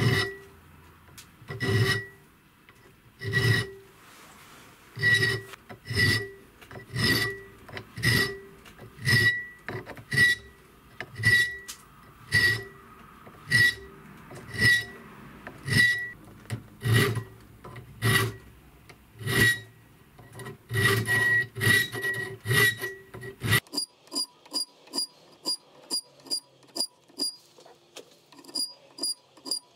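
Hand file rasping on a steel knife blank clamped in a vise, about one stroke a second, the steel ringing on each stroke as the shoulder of the blade is filed. The strokes speed up shortly before they stop, and a quicker, lighter ticking rhythm follows near the end.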